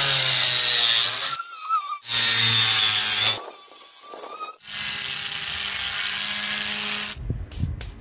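Angle grinder with a sanding disc sanding the wooden wall planks: loud grinding in spells, broken by quieter stretches where only the motor's whine is heard. It then runs steadily until it stops about seven seconds in, followed by a few knocks.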